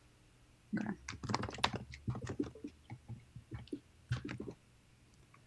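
Typing on a computer keyboard: an irregular run of key clicks starting under a second in and stopping about a second before the end.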